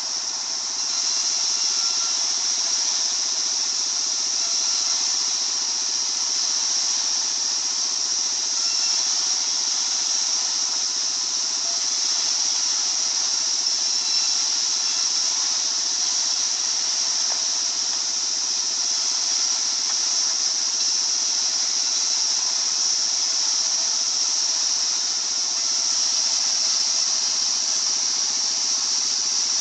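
Sawmill circular saw running steadily with a high-pitched hiss, a little louder from about a second in.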